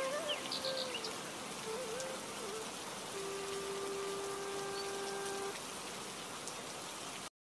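Steady rain-like hiss under long, held whistle-like notes that bend slightly in pitch, plus a few short high chirps. The sound cuts off abruptly near the end.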